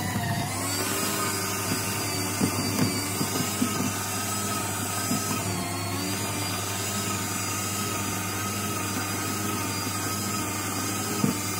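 Electric shredder motor running steadily while chewing through ribbon cable. Its pitch sags briefly under load near the start and again midway, and sharp crunches and snaps come from the cutters several times.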